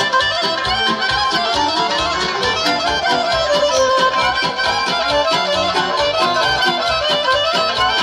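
Live folk band music played through loudspeakers: a fast, ornamented melody over keyboard and accordion, with a steady beat.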